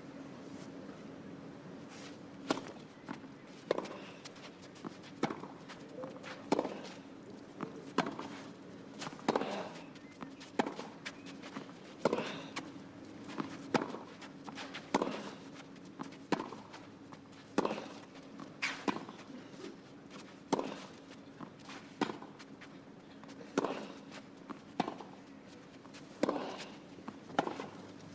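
A long baseline rally on clay: tennis balls struck by rackets, a sharp pop about every second and a half, some twenty strokes in a row.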